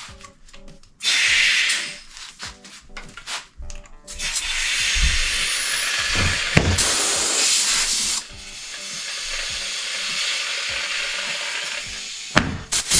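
Compressed air hissing into a motorcycle tire through an air chuck as it is inflated to seat the bead. There is a short blast about a second in, then a long loud hiss from about four seconds, which eases off at about eight seconds and goes on more quietly, with a few sharp clicks near the end. Background music plays under it.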